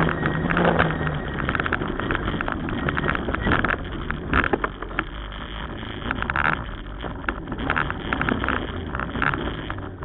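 Ford Escort RS Cosworth rally car's turbocharged four-cylinder engine running hard at stage speed, heard inside the cabin together with road and wind noise and frequent sharp knocks and rattles.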